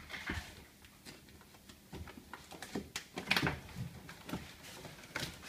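Plastic film being peeled off the inner panel of a Mitsubishi Outlander's door, crinkling and tearing away in irregular rustles and small snaps, loudest about three seconds in.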